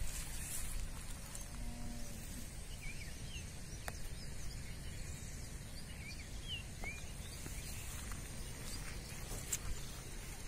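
Rural outdoor ambience: a low steady rumble under scattered short bird chirps and a faint steady high-pitched tone, with a couple of brief sharp clicks.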